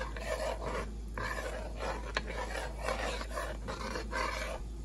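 A spoon stirring and scraping through a thick, creamy curry gravy in a pan, in even strokes about two to three a second, with one sharp click of the spoon against the pan about two seconds in.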